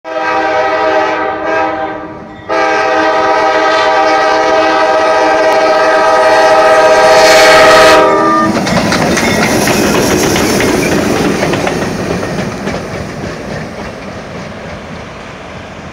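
EMD GP38-2 diesel locomotive running light sounds its horn in two blasts, a shorter one and then a long one of about six seconds. It then passes close by, its 16-cylinder two-stroke diesel and wheels on the rails rumbling and fading away as it recedes.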